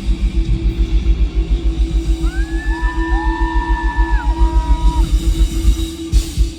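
A live band's interlude through the festival PA: a fast pulsing bass, about eight beats a second, under a steady low drone, with a held high chord sliding in about two seconds in and sliding away about five seconds in. The pulsing bass stops about six seconds in.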